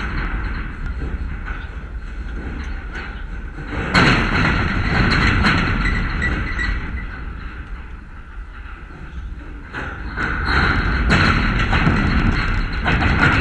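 Wind buffeting the camera's microphone: a steady low rumble with louder gusts, one starting suddenly about four seconds in and another rising near the end.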